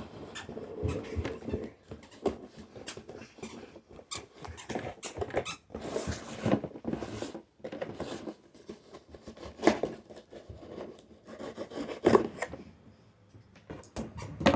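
Shipping box and packaging being handled and opened by hand: scattered clicks, crinkles and rustles, with a longer rasping rustle about six seconds in.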